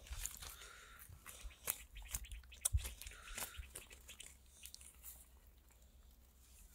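A person chewing food close to the microphone: soft, irregular mouth clicks and smacks.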